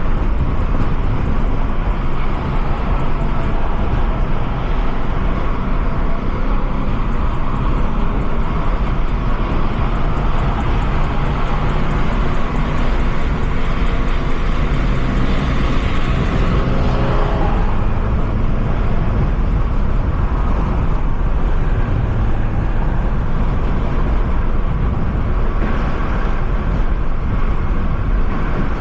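Car driving along the road: steady engine and road noise, with the engine note sweeping in pitch about halfway through.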